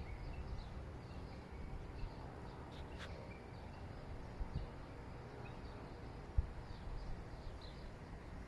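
Faint outdoor ambience: small birds chirping now and then over a low rumble, with a single sharp knock about six and a half seconds in.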